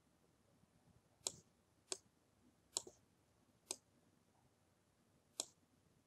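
Five separate sharp clicks of a computer mouse, irregularly spaced, against near silence.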